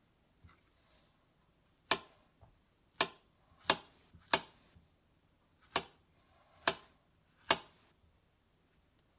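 Knife cutting through a peeled banana and clicking against a granite countertop under a paper towel: seven sharp clicks at uneven intervals, one per slice.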